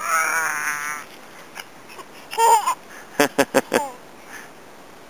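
A toddler babbling: a long high, wavering squeal at the start, a short call about two and a half seconds in, then a quick run of short syllables just after three seconds.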